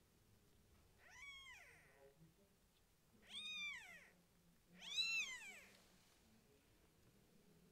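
A very young kitten mewing three times, high-pitched calls that each rise and then fall, the third the loudest.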